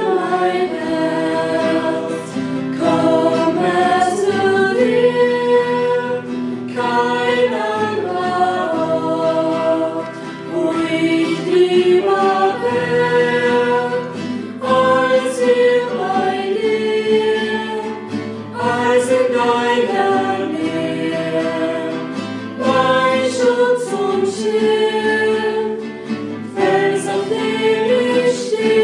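Small choir of young, mostly female voices singing a hymn together in parts.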